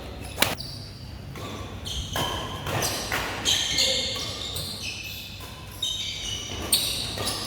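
Badminton rally: sharp racket hits on the shuttlecock a few seconds apart, the clearest about half a second in and again near the end, with short high-pitched squeaks of shoes on the court floor.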